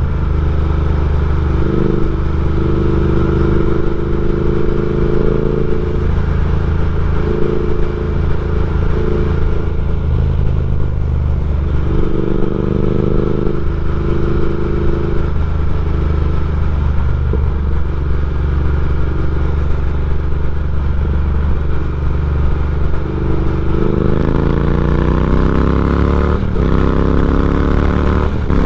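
Triumph Speed Twin's 1200 cc parallel-twin engine through a decat X-pipe and slip-on mufflers, running under way. It holds mostly steady for most of the stretch, then revs up with rising pitch near the end, broken by two short dips like gear changes.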